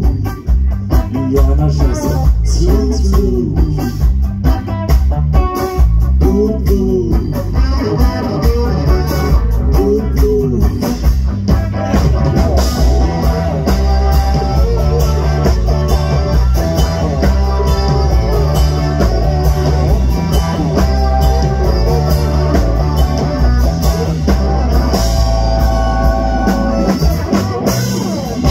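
Live blues-rock band playing loud: sung lines over electric guitar, bass and drums for roughly the first ten seconds, then an instrumental stretch led by electric guitar.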